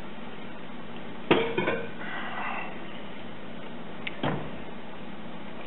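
The metal-rimmed hop strainer knocks twice against the stainless brew pot, about a second in and again near four seconds, each with a brief metallic ring, while grain-steeped wort drains and splashes back into the pot after the first knock. A steady gas burner hiss runs underneath.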